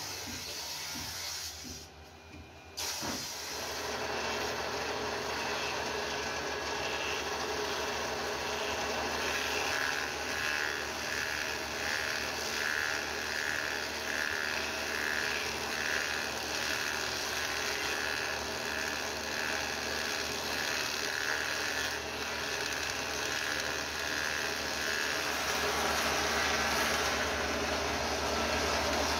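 A power tool running steadily on wood, with an even rhythmic pulsing through the middle stretch.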